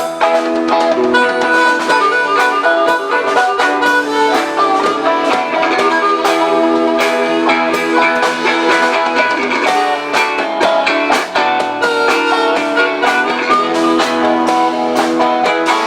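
Live rock band playing an instrumental passage: steady drum-kit hits under guitar and a lead instrument holding long sustained notes.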